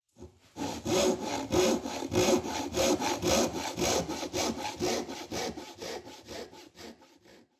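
Handsaw cutting wood in steady back-and-forth strokes, about two a second, fading away near the end.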